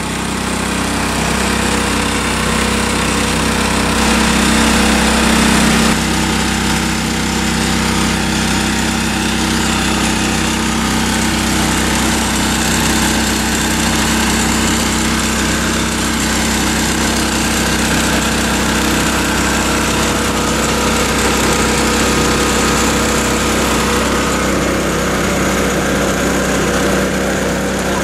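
Small gasoline engine driving a 2-inch water pump, running steadily at one speed, with water rushing through the sluice box.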